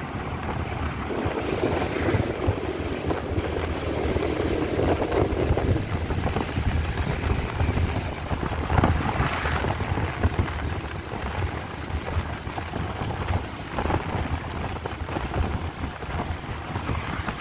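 Wind buffeting the phone's microphone while riding a motorbike, with engine and road noise underneath.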